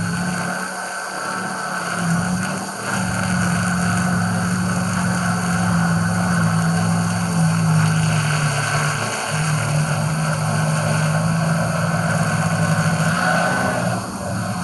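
DJI Phantom 4 Pro quadcopter's propellers buzzing steadily just overhead, picked up by a camera slung beneath it, over a steady rushing hiss. The pitch sags briefly about nine seconds in as the motors change speed, then comes back up.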